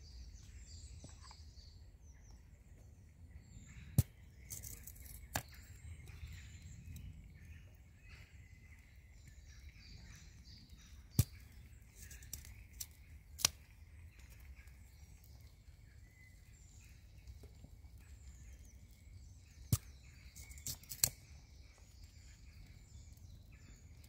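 Sharp snaps of dry twigs being broken to feed a small twig-burning camp stove: about six loud cracks spread a few seconds apart, some followed closely by smaller ones. Faint birdsong behind.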